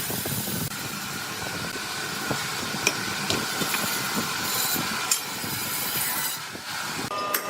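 Sawmill machinery running: a steady mechanical rumble and hiss with irregular rattling and clanking, and a few sharp clicks.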